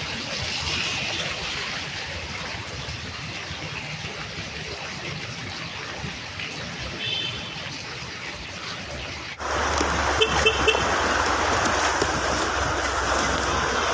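Steady rush of flowing floodwater in heavy rain. About nine seconds in, it cuts to a louder rush of water over a steady low rumble, with a few brief high chirps.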